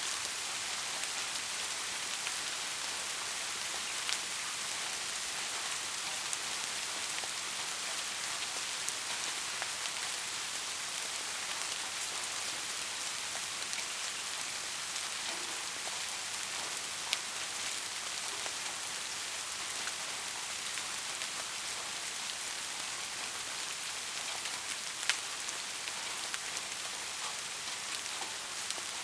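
Steady rainfall, an even hiss of many drops with scattered louder drop ticks; the clearest come about four, seventeen and twenty-five seconds in.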